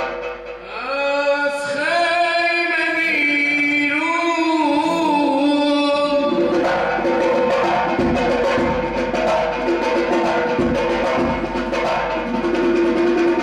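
A zurkhaneh morshed sings a long, gliding chanted phrase over a drum rhythm that paces the shena push-up exercise. The voice phrase begins about a second in and ends around the middle, after which the drumming continues with a steady held tone.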